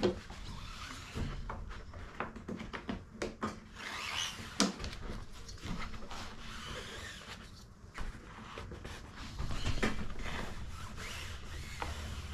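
A large sheet of carbon-fibre-pattern vinyl wrap rustling and scraping as it is handled against a jet ski hood, with spring clamps being worked. Scattered sharp clicks and knocks run through it, the loudest at the very start and a little before halfway.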